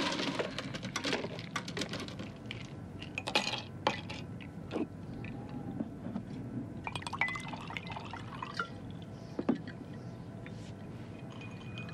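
Whisky poured from a bottle into a glass, with glass clinking and small knocks as the glass and bottle are handled. Later come a few short clicks, which fit keys being pressed on a computer keyboard.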